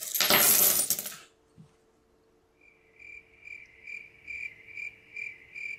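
A handful of coins clattering onto a desk, then after a short pause a cricket chirping at an even pace, about two chirps a second, starting about three seconds in: the comedy 'awkward silence' cricket sound effect.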